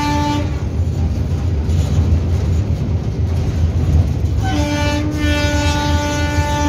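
Locomotive horn heard from inside the cab: a blast that ends about half a second in, then a second long blast from about four and a half seconds in to the end, over the steady low rumble of the locomotive running along the track.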